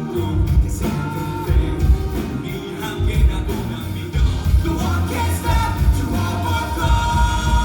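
Live pop-rock band playing, with a steady drum and bass beat and sung or held melodic notes over it.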